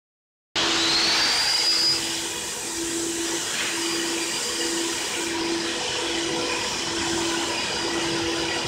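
Water-filter vacuum cleaner switching on about half a second in, its high whine rising as the motor spins up, then running steadily. A low hum pulses on and off a little more than once a second.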